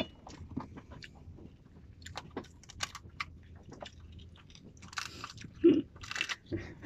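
A person chewing and eating raw sea urchin close to the microphone: scattered wet mouth clicks and smacks, with louder clusters about five to six seconds in.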